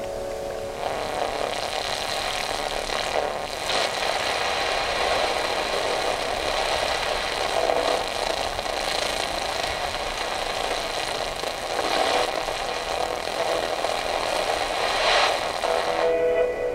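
Portable transistor radio hissing with static as its tuning dial is turned between stations, with a few short crackles. Near the end a few steady tones briefly come through before the static returns.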